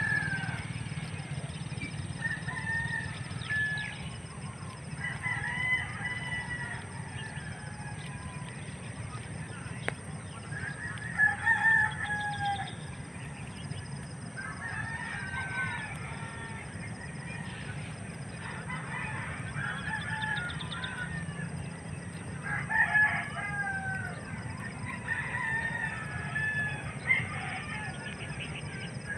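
Domestic fowl calling: short pitched calls that bend slightly downward, recurring in clusters every two or three seconds, over a steady low background hum.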